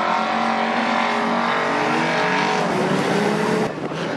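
Several racing sedans' engines revving on a dirt track, a few engine notes rising and falling over one another; near the end the sound drops suddenly to a quieter engine sound.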